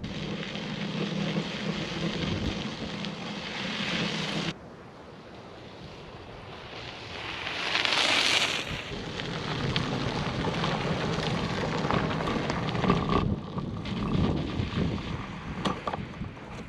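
Riding sounds of a Hyper Explorer mountain bike: tyre noise and wind buffeting the microphone, dropping away abruptly about four and a half seconds in. About eight seconds in the bike passes close by a low camera on asphalt, with a brief rush of tyre and wind noise.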